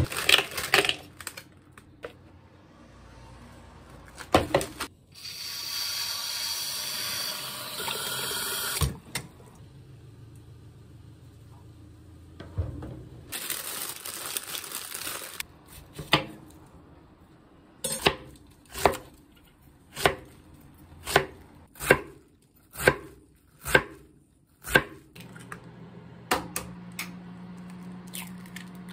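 Kitchen knife cutting a napa cabbage on a wooden cutting board: about nine sharp chops, roughly one a second, in the second half. Before that comes the crinkle of a plastic bag around the cabbage, and earlier a steady rushing noise lasting a few seconds.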